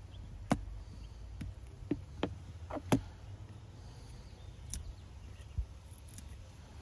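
About half a dozen sharp, scattered clicks and taps of small tools and parts during iPhone XR disassembly, the loudest about half a second and three seconds in, over a low steady hum.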